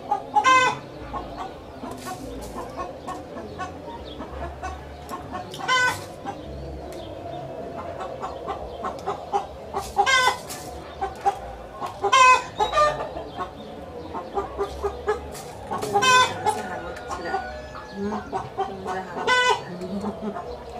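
Chickens clucking: short calls every few seconds over a steady low background hum.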